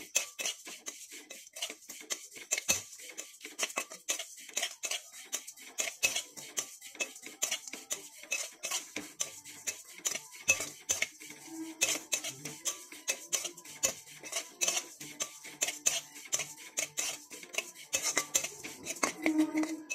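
A metal spatula scraping and turning whole spices (cumin, coriander, panch phoron, cloves, cardamom) as they dry-roast in a metal kadai. It makes a quick, irregular run of scrapes and clicks with the seeds rattling. The spices are stirred without stopping so they do not burn.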